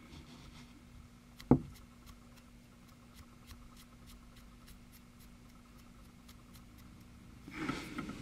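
Small handling noises while a tiny plastic figure is brush-painted: a sharp click about a second and a half in, faint small ticks and soft brushing, and a short rustle near the end, over a steady low room hum.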